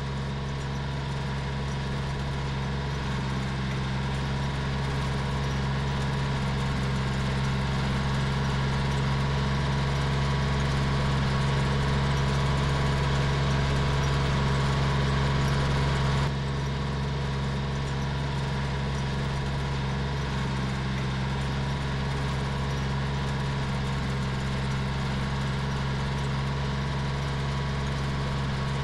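Three-cylinder Yanmar diesel engine of a C25R crawler dumper running at a steady speed, its sound dropping a step in level a little past halfway.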